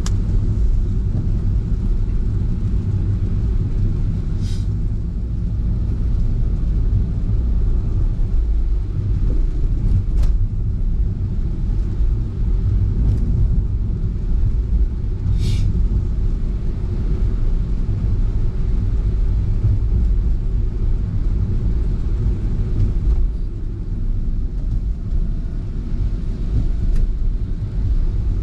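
Car driving, heard from inside the vehicle: a steady low rumble of road and engine noise, with two brief high-pitched chirps, one near 5 seconds in and a louder one about 15 seconds in.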